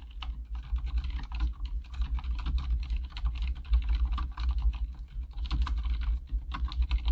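Fast, continuous typing on an Archon K79 mechanical keyboard with Cherry MX Silent Red switches: a steady stream of soft, muffled keystrokes with dull thuds as the keys bottom out. The stabilized keys give no rattle, though the case rings a little hollow despite its sound-dampening foam.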